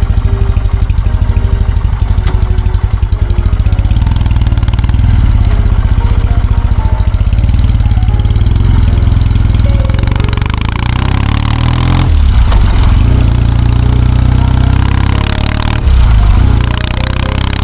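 Kawasaki W650's air-cooled parallel-twin engine running with an even, low pulsing beat, then pulling away with revs rising, broken by gear changes about two-thirds in and near the end.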